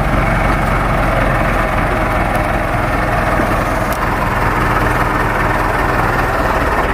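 Heavy vehicle engine running steadily at low revs.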